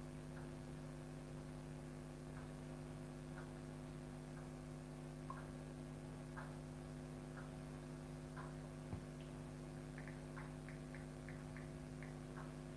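Faint room tone: a steady electrical hum with a soft tick about once a second, then a quicker run of higher ticks near the end.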